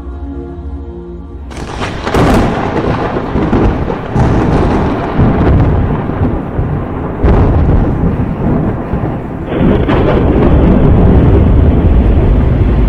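A wordless angelic choir holds chords for the first second and a half. Then thunder breaks in, a loud rolling rumble with fresh claps about two, four, seven and nine and a half seconds in, over dark background music.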